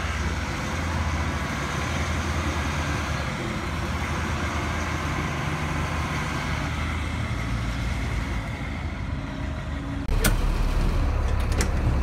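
Cat 3116 inline-six diesel of a 1998 Blue Bird GMC CV200 school bus running as the bus drives by, its pitch rising a few seconds in. About ten seconds in the sound switches to inside the cab: louder engine drone with a few sharp clicks.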